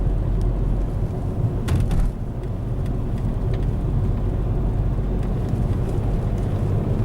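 Car driving uphill, heard from inside the cabin: a steady low engine and road rumble, with a brief click about one and a half seconds in.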